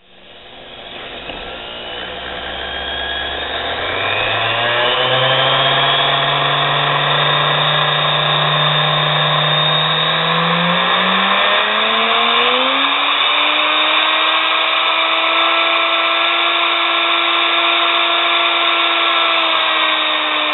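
Small 0.2 hp (150 W) spindle motor of a nano lathe running with its drive belt off, under no load. Its whine rises steadily in pitch for about thirteen seconds as the speed knob is turned up, then holds steady and drops slightly near the end.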